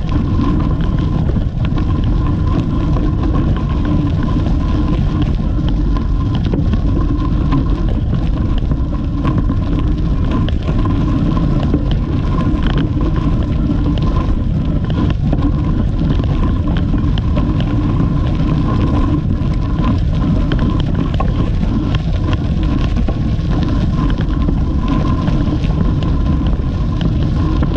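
Wind buffeting the microphone of a camera moving with a bicycle: a steady low rumble, with scattered faint clicks from the tyres on a dirt path.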